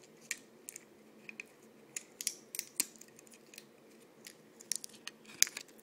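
Clear plastic packaging of an iPod Shuffle crackling and clicking as fingers work the player free of it: irregular small crackles and clicks, the sharpest about five and a half seconds in.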